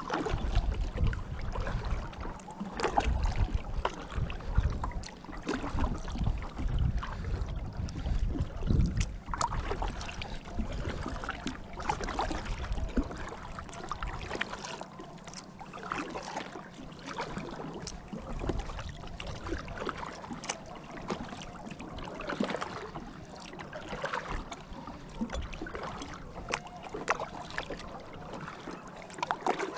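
Kayak paddling: the double-bladed paddle dips and pulls through calm water, stroke after stroke, with splashes and drips off the blades and water washing along the hull. A low wind rumble on the microphone runs through the first half and eases off about halfway through.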